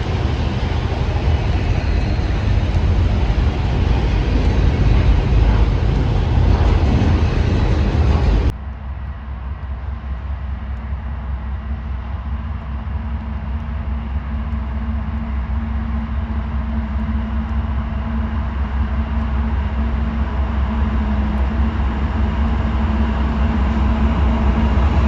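Diesel train running, a loud steady rumble; about eight seconds in it cuts off abruptly to a quieter, steady low engine drone with a held hum that slowly grows louder toward the end.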